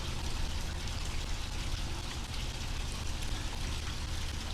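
Steady hiss with a constant low hum underneath and faint scattered crackle.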